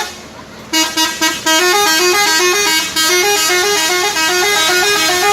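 A bus's telolet musical horn playing a long melody. After a brief lull, a few short separate toots come about a second in, then an unbroken run of quickly alternating notes.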